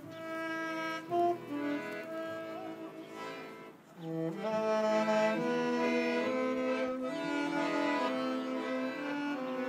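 A small orchestra playing a slow piece in held chords, several instruments sustaining notes together. It drops away briefly about four seconds in, then comes back fuller and louder.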